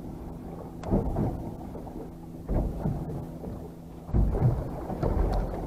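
Wind rumbling on the microphone and waves slapping against a small boat's hull, with three stronger low surges about a second and a half apart.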